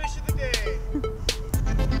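Background music: a beat of regular drum hits with short melodic notes over it.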